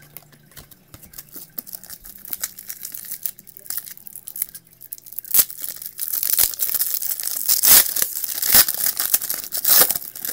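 A trading-card pack wrapper being torn open and crinkled. Light scattered clicks and rustling come first, then the tearing and crinkling turns loud and dense about halfway through.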